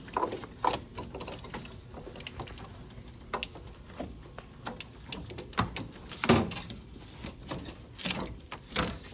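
Scattered clicks, knocks and scraping of a car radiator being worked up and out of the engine bay by hand, its edges catching on the surrounding parts. The sharpest knock comes about six seconds in.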